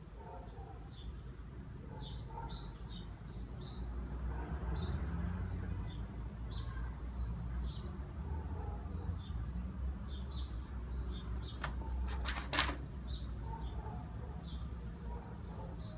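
Small birds chirping repeatedly, short high chirps every half second or so, over a steady low rumble. There is one brief sharp noise about three quarters of the way through.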